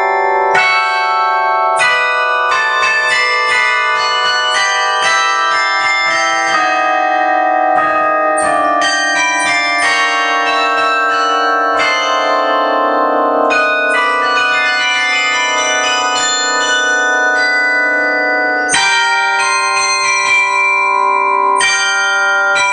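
Carillon bells playing a pop melody: many tuned bronze bells struck one after another from a keyboard, each note ringing on with bright overtones so that the notes overlap.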